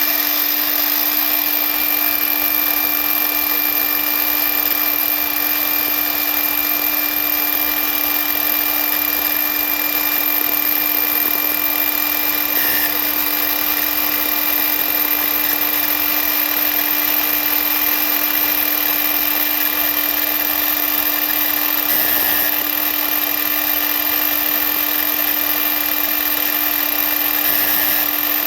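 Ridgid R48607 18-volt brushless 7-1/4-inch sliding miter saw running free at full speed, a steady motor whine with a terrible grinding from the arbor bearing, which has been left dry after its gear oil leaked out.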